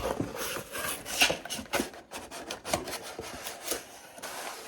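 Packaging of a boxed figure being opened and handled by hand: continuous rubbing and scraping of cardboard and plastic, with many sharp clicks and taps.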